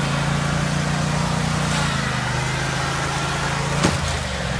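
Riding lawn mower engine running steadily, with one sharp knock about four seconds in.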